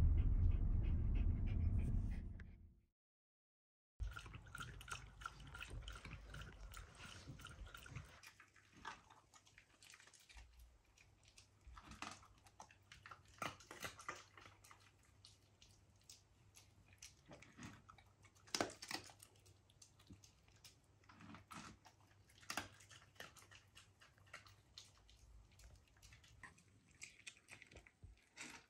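A Shiba Inu pants quickly over the low rumble of a car on a bumpy road. After a break, small scattered crunches and clicks follow in a quiet room as the dog eats dry kibble from its bowl and its claws tap on the wooden floor.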